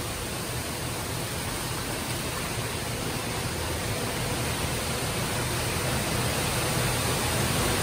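Steady rushing and splashing of a small underground waterfall pouring into a cave pool, growing gradually louder.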